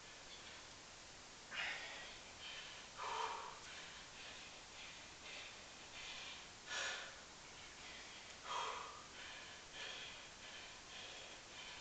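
A person breathing hard from exertion during a long set of one-leg squats: a sharp, forceful breath every one to two seconds, with fainter breaths between.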